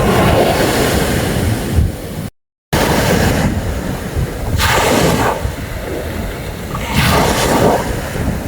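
Sea waves washing onto a sandy beach, the surf swelling and falling back a few times, with wind rumbling on the microphone. The sound cuts out completely for a moment a little over two seconds in.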